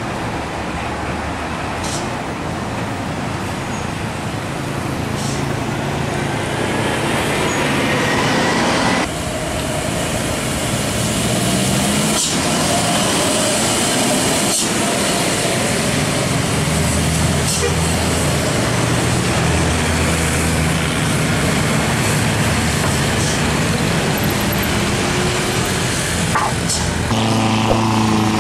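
Loaded heavy diesel trucks straining up a steep, winding grade, engines running hard, with road and traffic noise. The sound changes abruptly about nine seconds in and again near the end.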